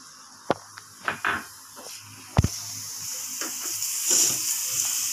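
Chopped garlic and onion frying in melted butter in a frying pan, stirred with a spatula: a few knocks of the spatula against the pan, the loudest about halfway, then a steady sizzle sets in and builds slightly.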